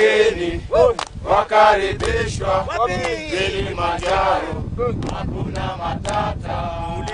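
Male voices singing together in a chant-like chorus.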